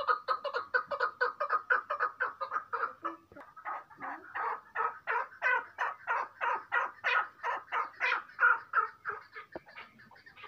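Chukar partridge calling: a rapid run of short clucking chuk notes, several a second, loudest in the middle and tapering off near the end.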